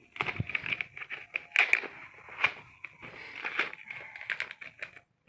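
Plastic-wrapped smartphone box being worked open by hand: irregular crinkling, crackling and clicks of the packaging, cutting off just before the end.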